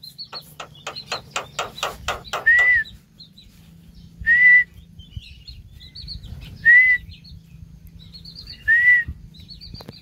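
Javan myna calling close by: a quick run of harsh clicking notes, about five a second, then four loud short whistles spaced about two seconds apart. Small birds chirp faintly in the background.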